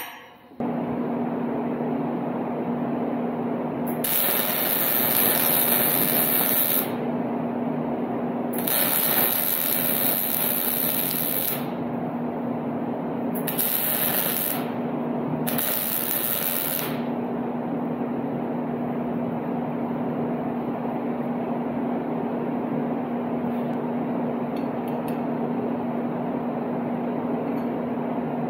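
Wire-feed welder arc crackling in four bursts, two of about three seconds, then two short ones, as a nut is welded onto a washer over a sheared exhaust bolt. A steady hum runs underneath throughout.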